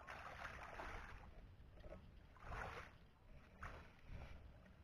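Faint sloshing and splashing of shallow muddy water as a person wades through it: a longer swish at first, then two short ones.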